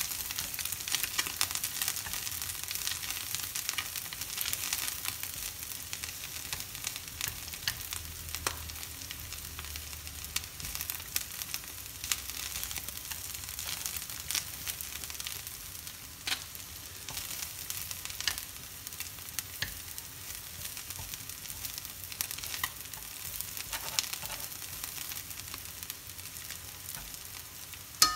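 Hot oil sizzling and crackling in a frying pan as small fried goby fish and wild betel (lá lốt) leaves are stirred with wooden chopsticks, which tap the pan a few times. The sizzle is strongest for the first several seconds, then eases off, with a sharp tap near the end.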